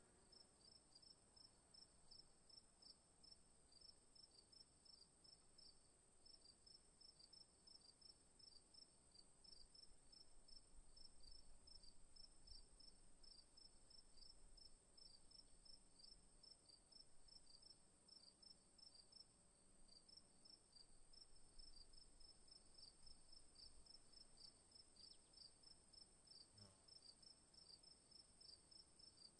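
Faint insect chirping: an even, rapid pulse of high chirps over a continuous high-pitched buzz, with a short break about two-thirds through.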